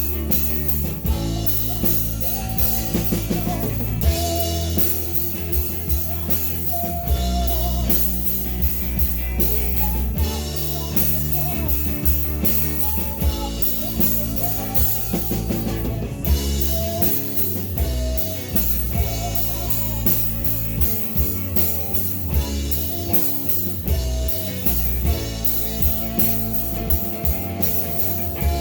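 Rock band playing live: a drum kit pounding steadily under guitars, with no break.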